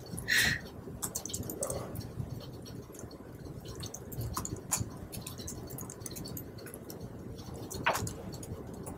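Scattered light clicks and taps from a laptop keyboard and mouse over a steady low room hum, with a brief louder sound just after the start.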